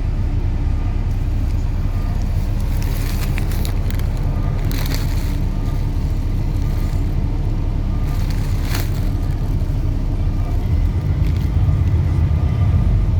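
Passing train: a steady low rumble with a few sharp knocks, getting a little louder near the end.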